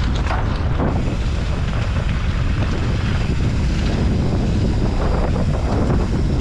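Wind buffeting the camera microphone on a fast mountain-bike descent, a steady low rumble over the rattle of the bike and tyres on a dirt trail.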